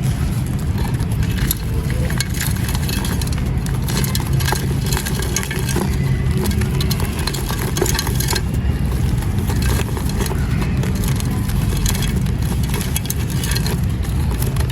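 Dry, brittle sand cement crumbling: a dense, irregular run of gritty crackles and crunches over a steady low rumble.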